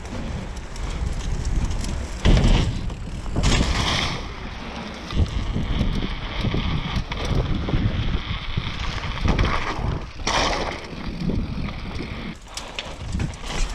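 Mountain bike ridden fast downhill: steady tyre rumble and wind buffeting on the microphone, broken by several loud jolts and rattles of the bike over bumps, the biggest about two seconds in and about ten seconds in.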